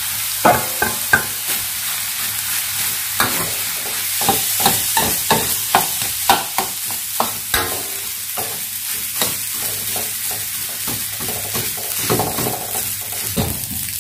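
A metal wok ladle scrapes and knocks against the wok, several strokes a second, as cooked rice is stir-fried, over a steady sizzle.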